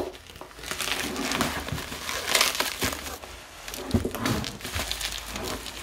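Plastic bubble wrap around a stack of books crinkling and rustling as it is cut and pulled up out of a cardboard box, with a few sharper knocks.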